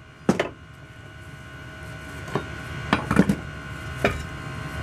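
A hammer blow on a punch knocks a rivet out of a truck drum-brake shoe, freeing the lining. About three seconds in comes a short run of loose metal knocks and clatters as the stripped steel shoe and lining are handled.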